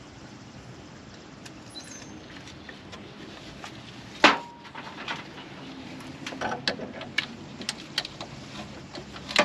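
Metal tools being handled: one loud metallic clank about four seconds in with a short ring, followed by a run of lighter clicks and taps.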